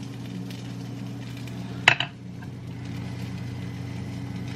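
Steady low electrical hum in a kitchen, with one sharp click about two seconds in.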